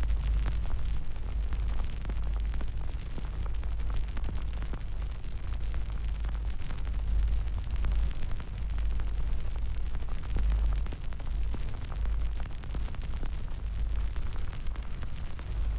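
Fire burning: a steady low rumble with dense crackling.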